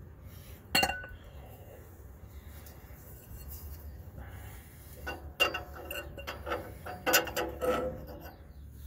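Metal clinking of a ratchet and oxygen-sensor socket working a stuck oxygen sensor in the exhaust pipe: one sharp clink just before a second in, then a run of irregular clinks and knocks over the last few seconds. The sensor won't break loose because the ratchet is being turned the tightening way.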